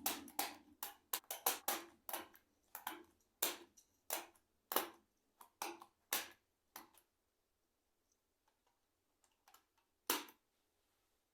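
Keys of a vintage ICL membrane keyboard clicking as they are pressed: a quick irregular run of about three clicks a second, then a few scattered faint ones and one louder click near the end.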